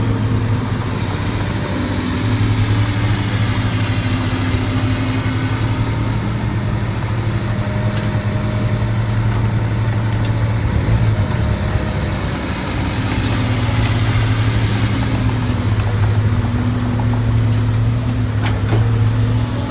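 Heavy earthmoving machine's diesel engine running steadily under load with a deep, even hum. The engine note briefly sags in the middle, then picks back up. A couple of sharp metallic knocks sound near the end.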